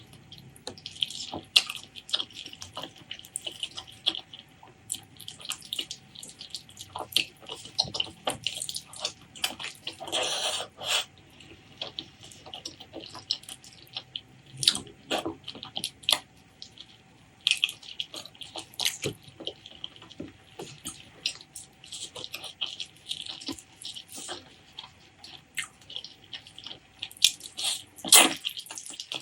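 Close-miked wet chewing and mouth sounds of eating pork leg curry with rice: rapid, irregular sticky clicks and smacks, with a few louder wet bursts, around ten seconds in and near the end.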